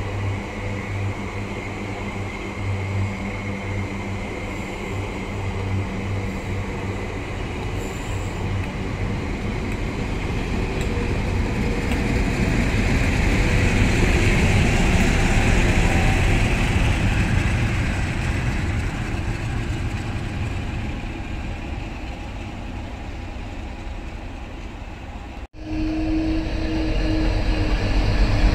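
A South Western Railway electric multiple unit, unpowered and hauled on a stock move, rolls slowly past. Its wheels rumble on the rails over a low hum, and the noise swells as the translator vehicle passes, then eases. After a sudden cut near the end, a Class 60 diesel-electric freight locomotive's engine drones with a steady tone, growing louder as it approaches.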